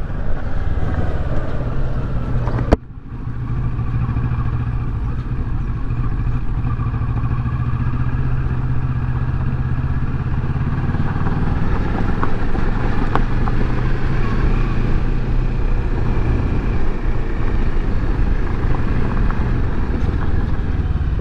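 Kawasaki Versys 650's parallel-twin engine running steadily while riding a dirt track, with tyre and road noise. A sharp click about three seconds in, after which the sound dips for a moment and comes back.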